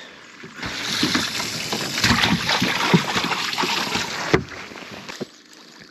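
Water splashing and sloshing around a small fishing boat, with scattered knocks, ending on a sharp knock about four seconds in.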